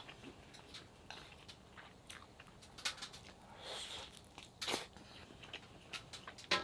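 A person eating close to the microphone: crunchy chewing with scattered small clicks and taps, and a sharper knock a little before five seconds in.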